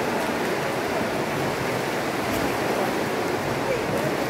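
Steady rush and splashing of water in a swimming pool.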